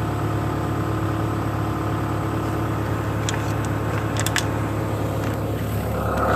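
Machine engine running steadily at an even speed, with a few light clicks a little past halfway and a short loud noisy burst at the very end.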